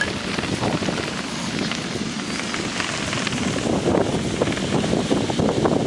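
Steady rushing, crackling noise of wind buffeting the camera microphone outdoors at the beach.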